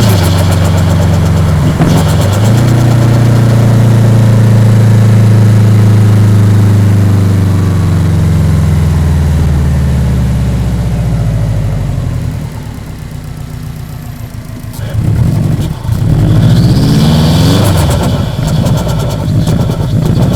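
Turbocharged EJ207 flat-four engine of a Subaru Impreza WRX running, its note falling slowly and steadily as the revs drop. About twelve seconds in it settles lower and quieter. A few seconds later the revs climb sharply again.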